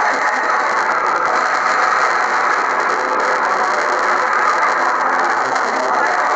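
Film sound effect of a swarm of mobile phones: a dense, steady clattering whirr like countless small ratchets and gears.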